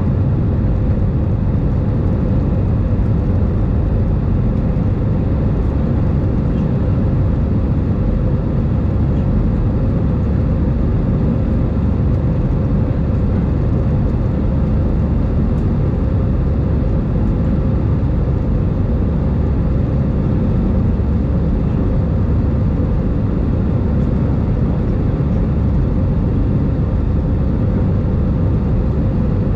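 Airbus A319 cabin noise in the climb after takeoff, heard inside the cabin: an even, low roar of engines and rushing air with a faint steady tone running through it.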